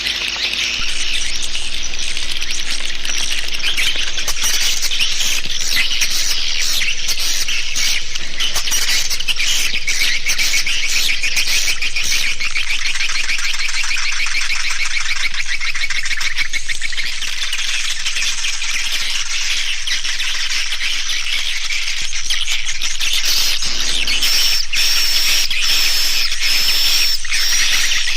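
Swiftlet call recording: a dense, continuous twittering of many fast chirps and trills, the lure sound used to draw edible-nest swiftlets to a nesting house. A steady high whistle-like tone joins in about four seconds before the end.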